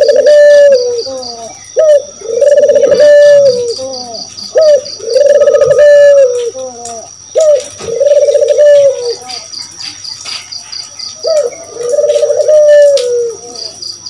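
Barbary dove (puter) cooing: five repeated calls, each a short rising note followed by a long held, rolling coo, with faint high chirping behind.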